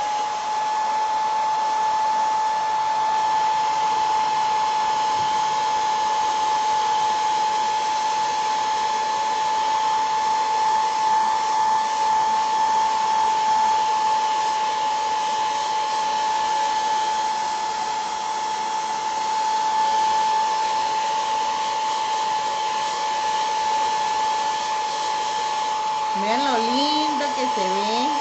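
Handheld hair dryer running steadily: rushing air with a high, steady motor whine, blowing on wet crackle paint to dry it and open the cracks.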